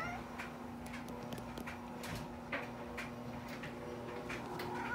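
A quiet room with a steady low hum and a scattering of soft, separate clicks and taps, about one or two a second.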